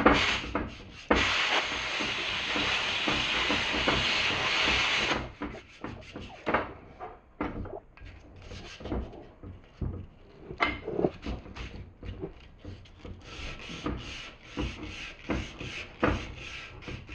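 Sandblast cabinet firing a steady hiss of compressed air and abrasive for about four seconds, starting and stopping abruptly. Irregular rubbing, scraping and light knocks follow.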